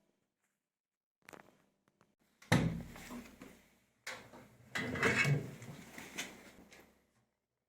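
Knocks and rattles from an LG washing machine's tub and cabinet as it is handled: a faint click early, a sharp knock about two and a half seconds in, then a run of clattering knocks.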